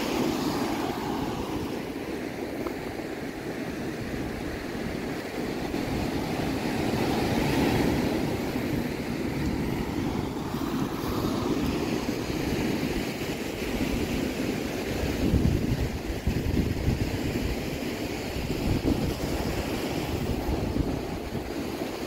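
Ocean surf breaking on rocks and washing up a sandy beach, a steady rushing wash that swells and ebbs, with wind buffeting the microphone in gusts.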